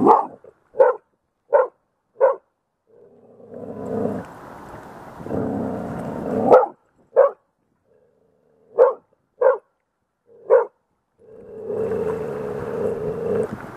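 A small dog barking sharply in short bursts, about nine single barks in groups with pauses between them, alarmed at driftwood floating in the river. Between the groups of barks, two stretches of wind buffet the microphone.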